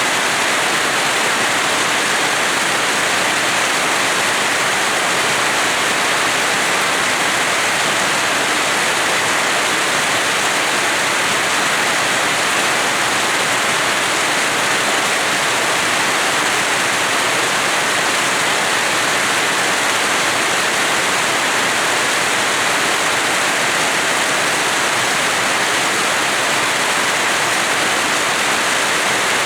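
Steady rain falling on a house yard, a constant even hiss of water with no breaks.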